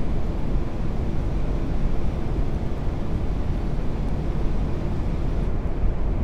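Steady rumble of airflow and engine noise inside an Airbus A380's cockpit on final approach, with gear down and flaps full. The higher hiss thins a little near the end.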